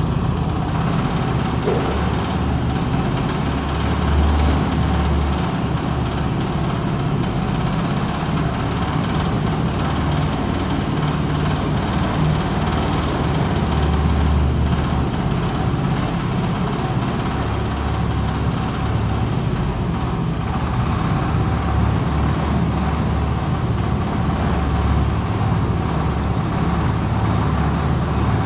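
Engine of a self-loading concrete mixer running steadily, a continuous low rumble with no break.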